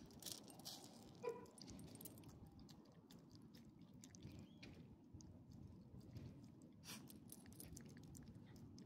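Faint, irregular wet clicks and smacks of an elderly small dog with a swollen gum chewing food out of a person's hand, with one brief louder pitched note about a second in.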